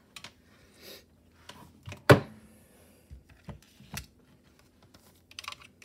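Handling noise as a handheld gem tester and jewelry are picked up and set down on a table: a few light clicks and knocks, the loudest a single knock about two seconds in, with a brief plastic-bag rustle near the end.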